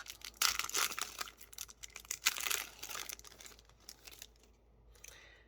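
A foil Yu-Gi-Oh booster pack wrapper being crinkled and torn open, a run of dense crackling rustles that dies away in the last second or so.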